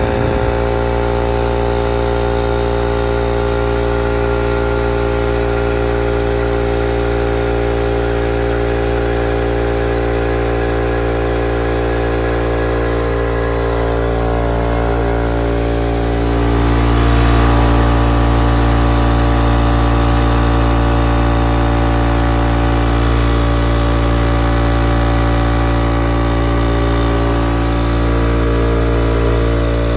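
Husky oil-free air compressor running steadily, its electric motor and pump giving a loud, even hum. The low part of the sound grows louder about sixteen seconds in and stays that way.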